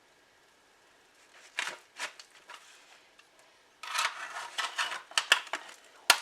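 Knife or pie server scraping and clicking against the pie dish while prying a slice of frozen pie out of its crust: a few light clicks, then a couple of seconds of dense scraping and a sharp click near the end.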